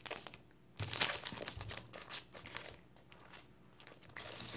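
Plastic wrapper of an Airheads taffy bar crinkling as it is handled, in spells: a louder stretch about a second in and more crinkling near the end.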